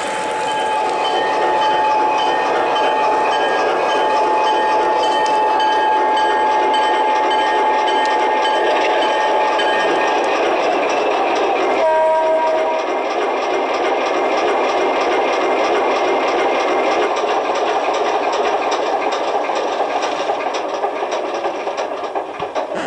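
An O-scale model diesel locomotive's onboard sound system playing a steady diesel engine rumble. A long, steady horn-like note sounds for about the first ten seconds, and a short two-note horn blast comes about halfway.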